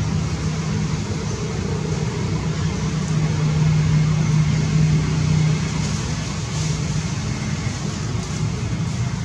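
A steady low engine hum holding one pitch over a noisy background, strongest for the first five or so seconds and then weaker and uneven.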